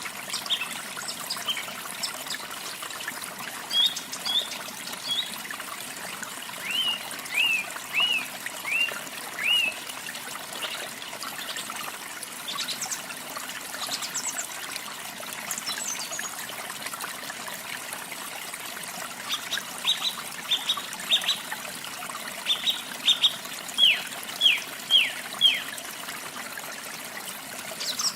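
Steady rush of falling water with songbirds singing over it: short, down-slurred chirps repeated in phrases of four or five notes, twice.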